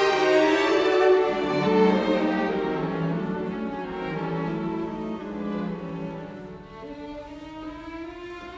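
Background music of bowed strings (violin and cello) holding long, slowly changing notes, growing quieter over the first several seconds.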